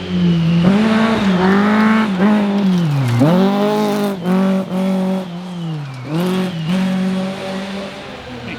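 Historic rally car engine running hard at high revs. The pitch drops sharply twice, about three and six seconds in, then climbs again each time as the car lifts off, changes gear and accelerates.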